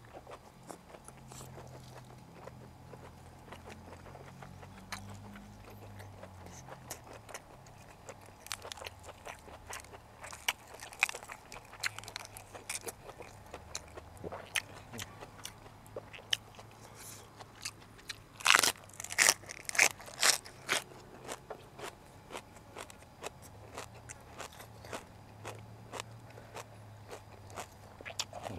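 Close-miked eating sounds: a man biting and chewing boiled pig uterus (sai tan) and fresh vegetables, with crisp crunches and wet chewing clicks. Four loud crunches come close together about two thirds of the way in.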